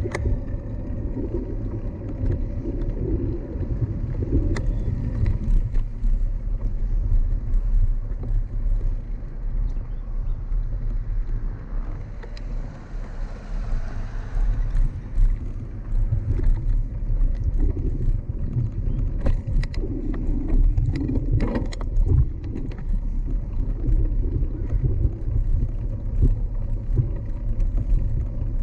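Continuous low rumble of wind and road noise from a moving bicycle, with scattered short rattles and clicks.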